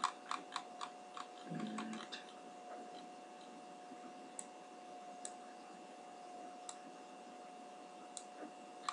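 Computer mouse clicking while a spline is edited: a quick run of clicks in the first two seconds, then single clicks every second or so, over a faint steady hum.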